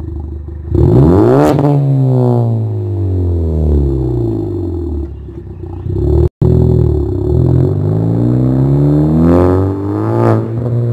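Ford Focus ST250's 2.0-litre turbocharged four-cylinder, heard through a loud custom exhaust. It is revved sharply about a second in and the revs fall away slowly. After a brief break the car pulls away, with the revs climbing and dropping twice near the end.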